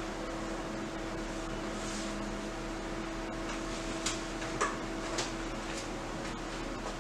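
Steady machine hum from a running fan, with a few faint clicks about four to five seconds in.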